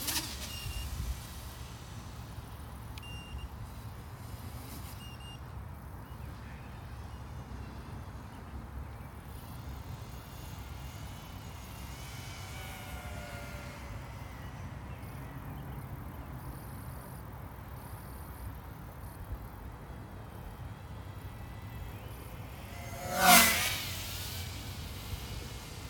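FPV racing quadcopter's motors whining, faint and distant for most of the time, over a low steady rumble. Near the end the quad passes close by once, a brief loud whine that swells and fades within about a second.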